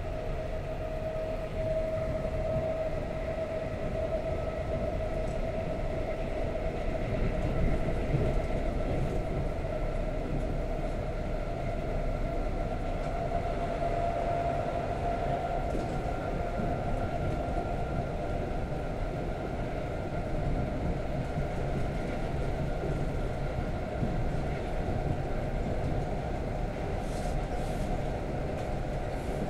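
Ride noise of the ED4M-0280 electric suburban train running at speed, heard from inside the passenger car: a steady rumble of the wheels on the rails with a steady whine over it.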